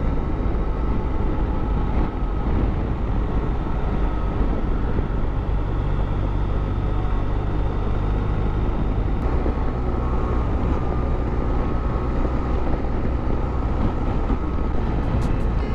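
Motorcycle engine running steadily under way, with wind and road rush on the riding microphone.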